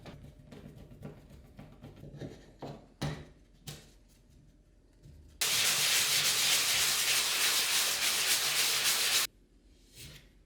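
Sanding on a plasterboard wall repair: a few light taps and scrapes, then about four seconds of loud, steady sanding that starts and stops abruptly.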